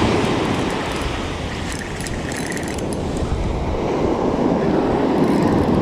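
Wind rumbling on the microphone over breaking surf and wash on the beach.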